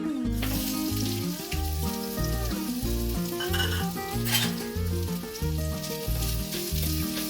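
Chopped coconut sizzling as it fries in a little oil in a small pan, stirred now and then, with one sharp click about four seconds in. Background music with a steady beat plays under it.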